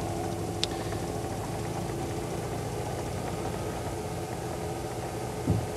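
Steady engine drone with a constant hum, and a short low thump near the end.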